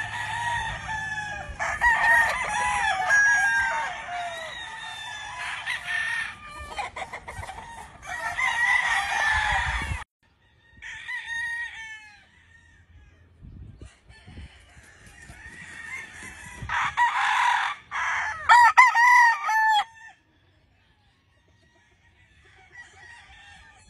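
Several gamefowl roosters crowing over one another, with hens clucking. The sound cuts off abruptly about ten seconds in. After that, single crows come back, with a cluster of loud crows shortly before the end.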